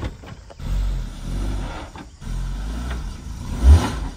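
Suzuki Jimny's engine revving in two surges as it tries to drive out of mud it is stuck in, with a short, loud low thump near the end.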